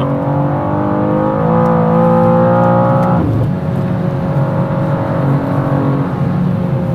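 BMW M2 (G87) twin-turbo inline-six pulling hard under full acceleration, heard from inside the cabin. The pitch climbs steadily in fourth gear, then about three seconds in it shifts up to fifth. The pitch drops and the engine pulls on.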